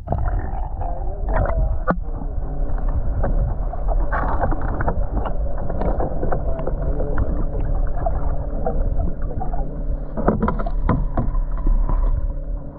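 Muffled underwater sound of river water: a heavy low rumble with a steady hum under it, and a few sharp knocks, a pair near the start and a pair about ten seconds in.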